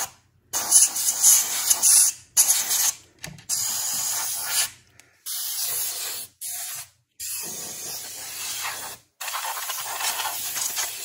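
Can of compressed air spraying through its straw into a dusty computer cooling fan: a loud hiss in repeated short blasts, stopping and starting about seven or eight times.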